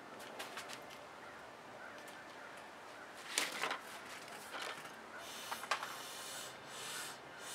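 Plastic squeeze bottle of black acrylic paint being squeezed over a canvas: a few light clicks, then a string of short hissing spurts about a second apart as paint and air are pushed out of the nozzle.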